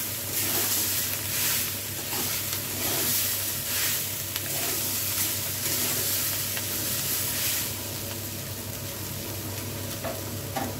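Steel spatula stirring and scraping diced potatoes and drumstick flowers in a metal kadai, over steady frying sizzle, in strokes about once a second. The stirring stops about eight seconds in, leaving only the sizzle.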